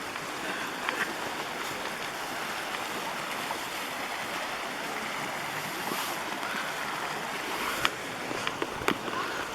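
Steady rush of a mountain creek's flowing water, with a few short sharp clicks near the end.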